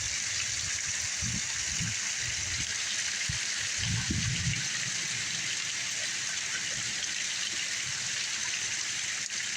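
Heavy rain falling steadily as an even hiss, with a few low rumbles in the first half.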